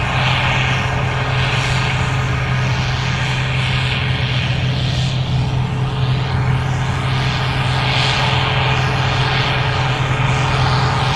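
Gleaner R65 combine running steadily while harvesting corn: a constant engine drone with a low hum under a broad whooshing of the threshing machinery.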